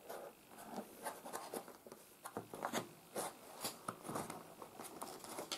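Fingers scratching and picking at the end flap of a long cardboard box to pry it open: irregular light scrapes and clicks.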